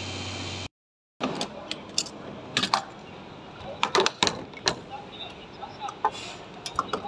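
Petrol station fuel dispenser running with a steady hum while fuel flows. After a brief cut, a series of sharp plastic and metal clicks and clacks as the pump nozzle is handled and hung back in its holster.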